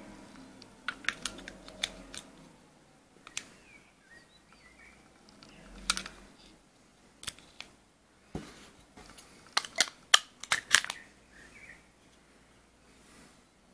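Sharp clicks and taps of a battery cell and metal battery cover being handled and seated in a small metal vape box mod: scattered single clicks, then a quick run of clicks about ten seconds in.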